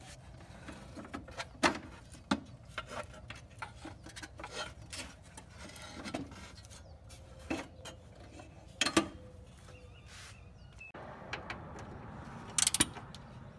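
Scattered light clicks, taps and rubbing of hand tools and metal parts being handled during disassembly of a riding mower.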